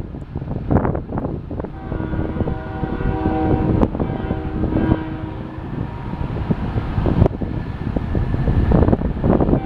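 BNSF freight locomotive horn sounding a chord of several steady tones for about four seconds, starting about two seconds in. Wind buffets the microphone throughout.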